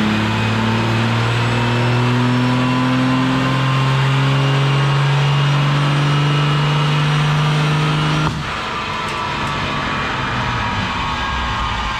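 Dodge Ram's 12-valve Cummins inline-six diesel pulling hard under load on a chassis dyno, its note climbing slowly as the revs build. About eight seconds in the throttle is lifted: the sound drops suddenly and the engine winds down.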